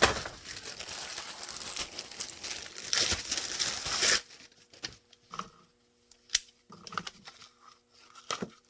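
Crinkling rustle of handled packaging or material for about four seconds, then it stops and a few light clicks and taps follow as hard parts are handled and fitted.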